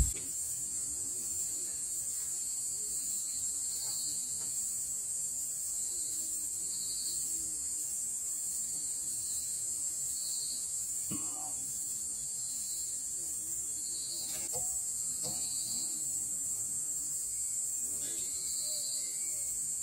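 Steady, high-pitched buzzing chorus of night insects, with a few faint clicks or rustles in the second half.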